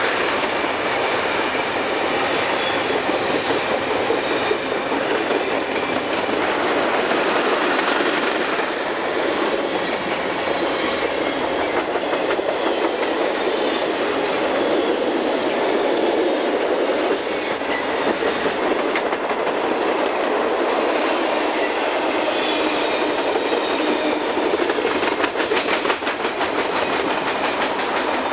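Freight train cars rolling past, a steady rumble and rattle of wheels on rail, with a run of quick clicks from the wheels near the end.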